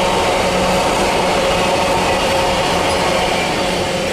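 Container freight wagons rolling past on the track: a steady rumble and rattle of wheels on rails with a steady whine above it, easing slightly near the end.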